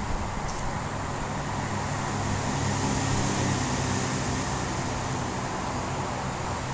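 Steady hum of road traffic, with a low drone that swells a little around the middle.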